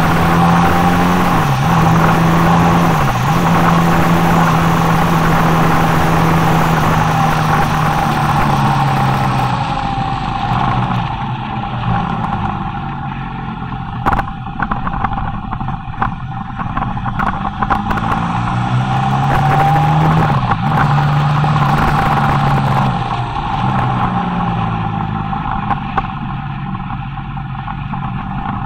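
Motorcycle engine running as the bike rides down a winding mountain road, heard from an onboard camera with wind rush over the microphone. The engine note dips briefly twice in the first few seconds. It then falls and quietens as the bike slows for a bend, and rises again about two-thirds of the way through as it accelerates away.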